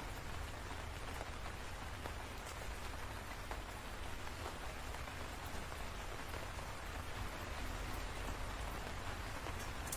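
Steady rainfall with a continuous hiss and scattered individual drop ticks.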